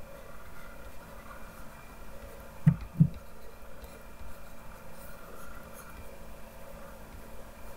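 Faint scratching and rubbing of painting strokes being made on a computer input device, with two quick low knocks close together about three seconds in, over a faint steady hum.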